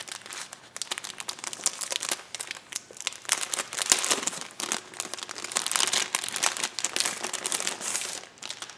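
Clear plastic packaging bag crinkling as it is handled and opened by hand: a dense, irregular run of crackles.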